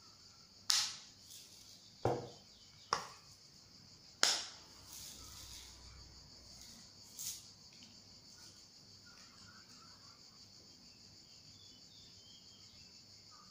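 Small plastic sprinkle container with a flip-top cap being handled and opened: four sharp plastic clicks and knocks in the first four seconds or so, then one softer click about seven seconds in, over a steady high-pitched hiss.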